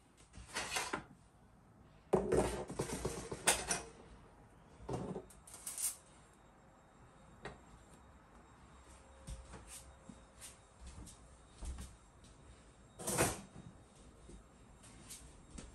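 Scattered knocks, clicks and clatter of kitchen things being handled and put away, busiest about two to four seconds in, with one louder knock near the end.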